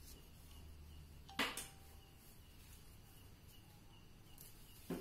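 Metal clip hardware of a nylon carrying strap clicking against a wooden pigeon cage as the strap is fitted: one sharp click with a brief ring about a second and a half in, and a softer click near the end.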